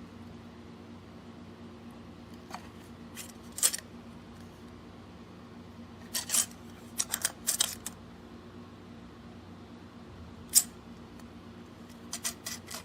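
Small hard objects being handled: scattered sharp clicks and taps, a few in quick little runs, over a steady low hum.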